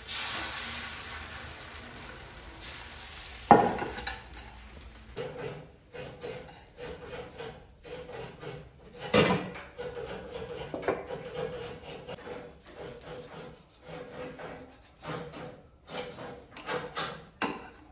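Coconut being grated on a coconut scraper: a long run of short rasping strokes over the second half. Before it, a hiss fades out and there is a single sharp knock about three and a half seconds in.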